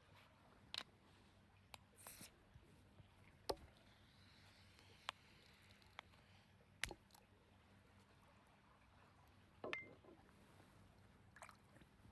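Faint, scattered sharp clicks and snaps, about a dozen at irregular intervals, over a quiet background.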